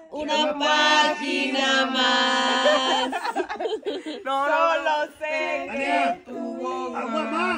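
Voices singing a song together, with long held notes.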